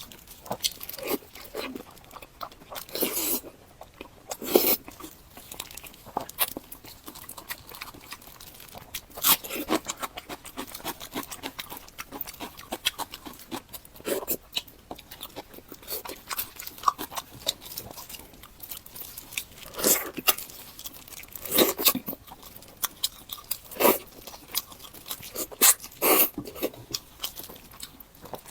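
Close-miked eating sounds: irregular crunching and chewing, with louder bites every few seconds.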